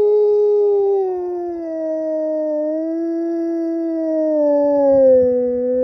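Wolf howling: one long, unbroken howl whose pitch sinks slowly with slight wavers.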